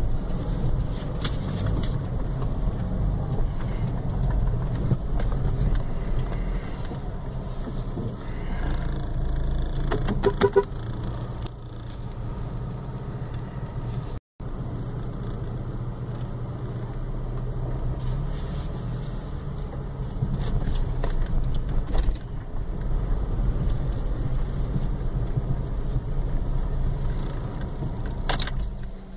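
Car engine and road noise heard from inside the cabin, a steady low rumble, with a few short knocks and rattles.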